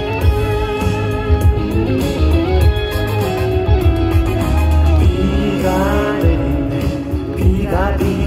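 Live band music played through the stage's PA, with guitar and a singer's voice, heard from among the audience.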